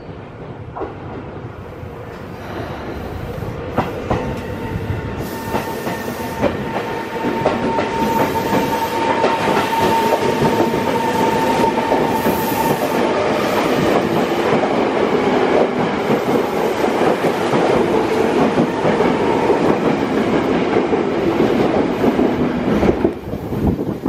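Tokyo Metro 03 series electric train pulling away from a station platform: a steady motor whine as it gathers speed, and wheels clacking over rail joints as the cars pass close by, getting louder over the first several seconds. The sound drops away near the end as the last car clears the platform.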